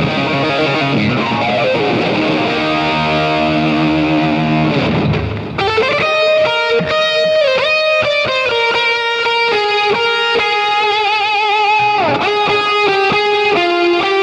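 Distorted electric guitar music: dense chords with sliding, falling glides for about five seconds, then a brief dip and a lead guitar line with string bends and vibrato.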